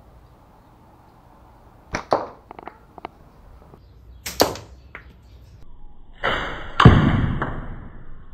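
Slingshot shooting: sharp snaps about two seconds in and a stronger one a little after four seconds. Near the end comes a loud crack inside a longer rushing noise that fades away.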